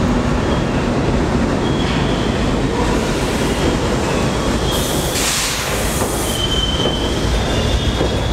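A G train of R68 subway cars pulling into an underground station: a steady rumble of steel wheels on the rails, with brief high wheel squeals now and then, the longest near the end, and a short hiss about five seconds in.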